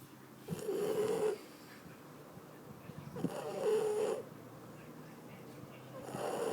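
Shar Pei dog snoring: three snores about three seconds apart, each lasting about a second, with quieter breathing between.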